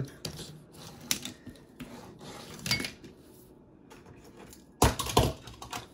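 Die-cast toy cars clicking and clinking as they are handled and set down on a table, with a louder clatter of metal toys near the end.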